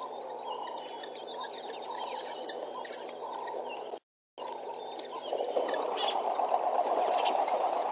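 A flock of guineafowl calling together, a dense chattering cackle with short higher chirps over it. The sound cuts out for a moment about four seconds in, then comes back louder.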